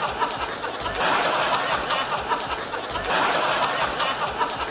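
Studio audience laughing and applauding in a dense wash of crowd noise that swells and eases about once a second.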